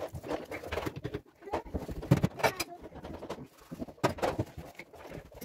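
Dishes and glassware clinking and knocking in a stainless steel sink as they are scrubbed by hand with a sponge, with irregular sharp clinks throughout.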